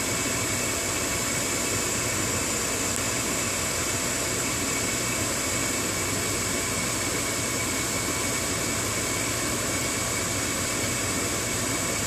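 Gas furnace draft inducer motor running steadily, a constant even rush of air and motor noise, while the hot surface igniter heats up ahead of the burners lighting.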